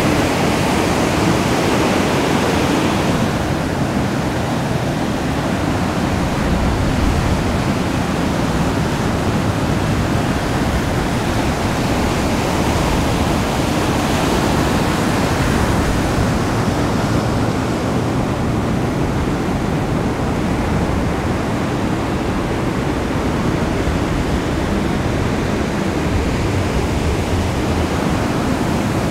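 Ocean surf: a steady, unbroken wash of breaking waves and whitewater.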